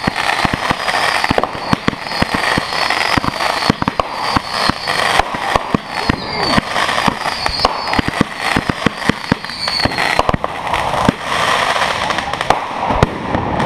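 Consumer fireworks going off in a rapid, irregular barrage of bangs and crackle, with short high whistling tones between the shots for the first ten seconds or so. This is a multi-shot cake firing its shots upward one after another.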